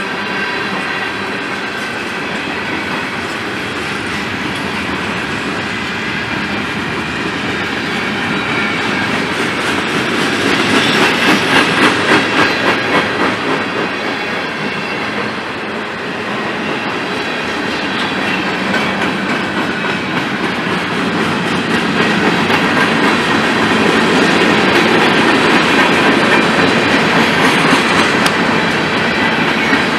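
Freight train cars of a mixed BNSF train rolling past at trackside: steel wheels clacking in quick rhythm over the rail joints over a steady rumble and rattle. The clacking gets louder about ten seconds in and again in the last third.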